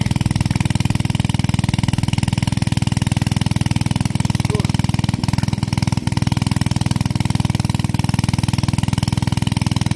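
A small engine running steadily with a fast, even pulsing throb.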